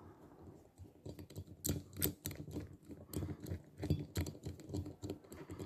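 A Torx T25 screwdriver turning screws into a Stihl MS 150 TC chainsaw crankcase: irregular light clicks and scrapes of the bit and screws, several a second. The screws are being run in loosely, not yet tightened.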